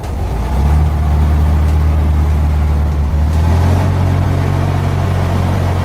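Logging truck's engine running under load, pulling through mud; it grows louder about half a second in and its pitch shifts slightly around three seconds in.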